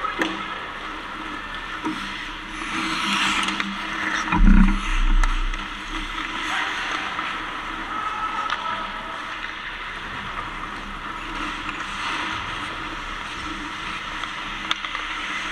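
Ice hockey play on a rink: skate blades scraping the ice with a few sharp clacks, and a heavy thump about four and a half seconds in.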